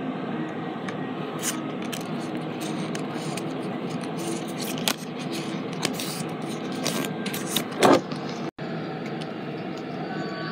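Foil Pokémon booster pack wrapper crinkling and scraping as it is opened and the cards slid out, in short scratchy strokes with one louder rustle about eight seconds in, over a steady background hum.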